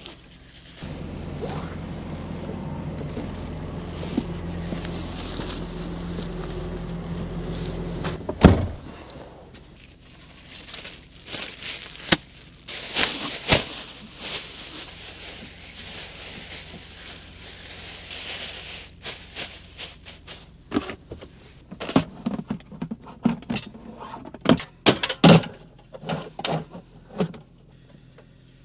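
A steady low hum for several seconds, cut off by a sharp click, then plastic bags rustling and crinkling. Near the end comes a run of knocks and clacks from a portable butane cartridge stove being set in place.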